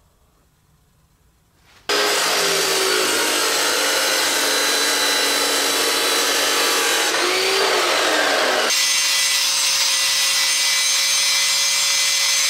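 DeWalt abrasive chop saw cutting through a steel rod, starting suddenly about two seconds in. About nine seconds in it gives way to an angle grinder grinding a flat onto the rod, with a steady whine over the grinding noise.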